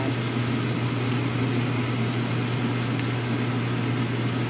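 Steady low mechanical hum of a kitchen motor running, with a few faint pops from sautéed fermented rice (burong kanin) bubbling in the pan.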